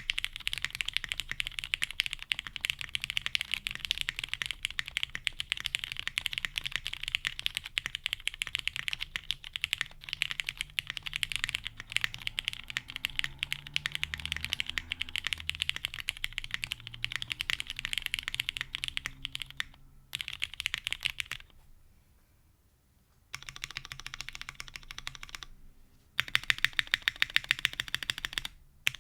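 Typing on a plateless 7V mechanical keyboard with lubed Cherry MX Black Hyperglide linear switches and iNKY x Domikey Silent Forest keycaps. It is fast and continuous for most of the time, with a short pause about three quarters of the way through, then softer typing, and then a run of louder, evenly spaced key strikes near the end.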